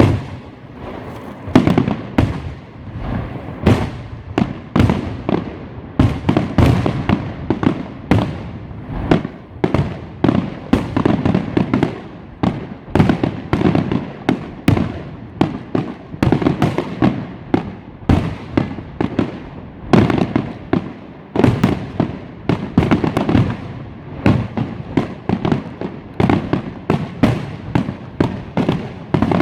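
Fireworks going off continuously: many overlapping bangs and cracks from several directions, several a second, echoing.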